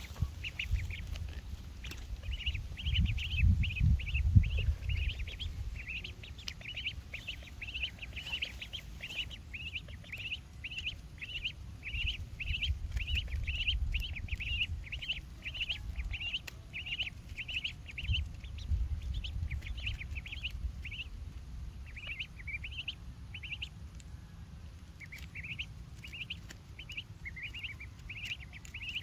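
A duckling peeping over and over, short high calls about one to two a second, with a brief pause a little past the middle. A low rumble runs underneath, loudest a few seconds in.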